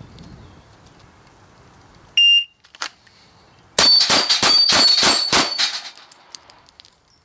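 A short electronic beep, like a shot timer's start signal, then a single crack. About a second later comes a fast string of roughly seven pistol shots on AR500 steel plates, the plates ringing with a high steady tone between the hits.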